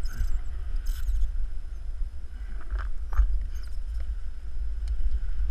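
Wind buffeting the microphone in a low rumble, with a few short scratchy rustles and clicks.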